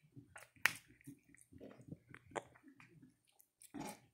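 Java macaques grooming a person's hair close to the microphone: fingers parting and picking through the hair in irregular soft clicks and rustles, with one sharper click under a second in.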